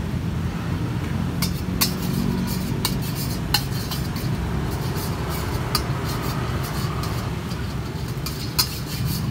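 Metal spatula scraping and clinking against a black steel wok while stirring spice paste in a little oil, with a handful of sharp clinks spread through the stirring. A steady low rumble runs underneath.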